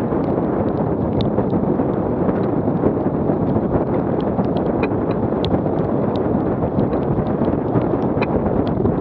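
Strong wind buffeting the microphone on a sailboat heeled and beating upwind in heavy weather, over the rush of water along the hull. Scattered small ticks of spray and drops hit the camera.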